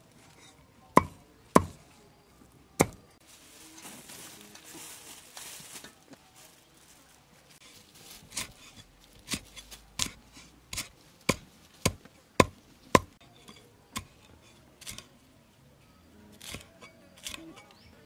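A large kitchen knife chopping on a wooden cutting board, slicing lemongrass and green chilies. Sharp single knocks come at uneven spacing, about one a second at first, then closer together in a run in the middle.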